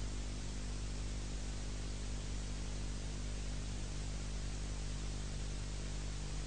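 Steady hiss with a low electrical hum underneath, unchanging throughout: the soundtrack's own background noise, with no distinct event.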